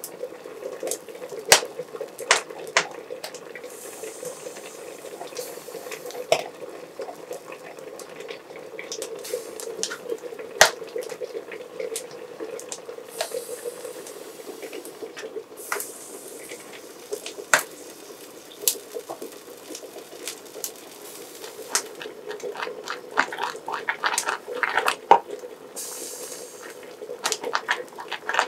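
A wooden spoon stirs cornmeal porridge (banosh) in a metal pot, knocking and scraping against the pot with scattered sharp clicks, busier near the end. A steady background hum runs underneath.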